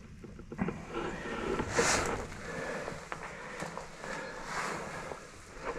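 Footsteps crunching and scuffing on a grit-covered mine floor, with clothing rustle. The loudest is a hissy scrape about two seconds in.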